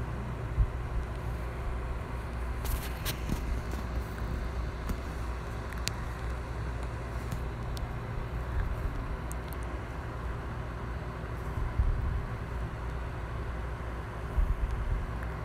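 Steady low rumble with hiss, and a few faint clicks scattered through it.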